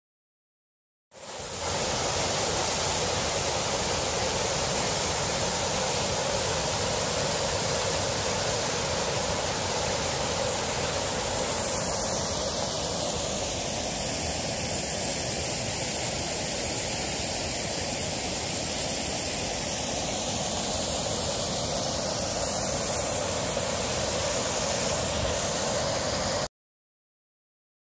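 Steady rush of a waterfall and river rapids, cutting in abruptly about a second in and cutting off abruptly near the end.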